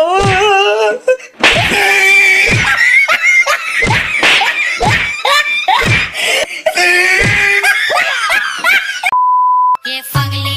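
Excited children's voices shouting and laughing, broken by repeated sharp slaps. About nine seconds in, a short steady censor beep replaces everything else, and music starts near the end.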